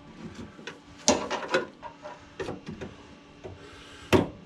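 Scattered metallic knocks, clicks and scraping of hand tools on car body sheet metal as a spot-welded panel piece is worked loose, the loudest knock about a second in. Near the end a hard blow starts a run of hammer strikes.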